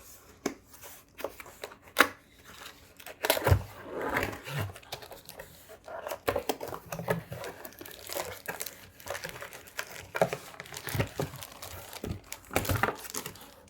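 Keyboard box packaging being opened and handled: crinkling and tearing of the wrapping with irregular clicks and knocks as the contents are taken out.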